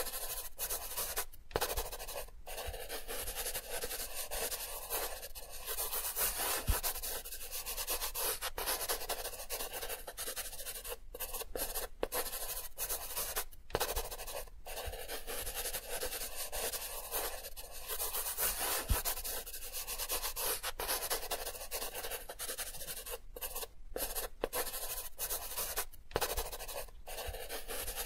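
Pencil scratching on paper in continuous sketching strokes, a dry hissy rubbing with brief breaks every few seconds.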